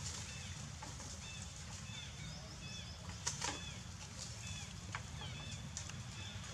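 Small birds chirping in short, repeated hooked notes over a steady low rumble, with a few sharp clicks, the loudest about three seconds in.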